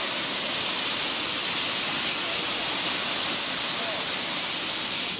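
Steam locomotive letting off a steady, loud hiss of escaping steam.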